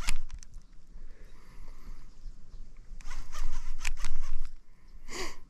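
Baitcasting reel spool whirring in quick runs of rapid clicks as fishing line runs through it, a short one at the start and a longer, louder one about three seconds in. A brief pitched squeak comes near the end.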